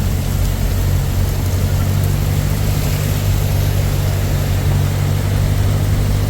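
Songthaew pickup truck's engine running steadily under way, a loud low drone mixed with road noise.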